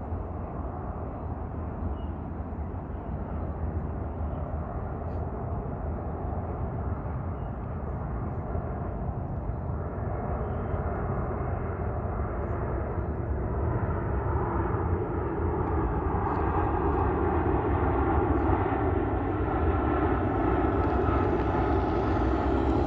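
Fixed-wing airplane approaching, its engine noise growing steadily louder, with a steady engine hum coming through in the second half.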